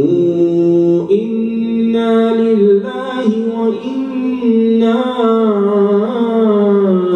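An imam reciting the Quran aloud in a slow, melodic chant, holding long drawn-out notes and gliding between pitches, with short pauses for breath.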